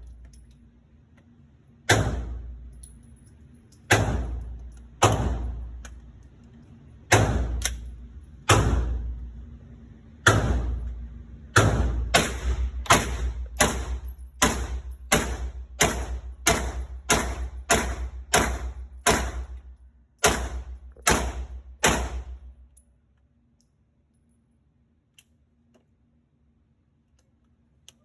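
Pistol shots, over twenty of them, each with a short echoing tail. The first shots come a second or two apart, then a fast even string of about two shots a second, ending with a few slower shots about 22 seconds in.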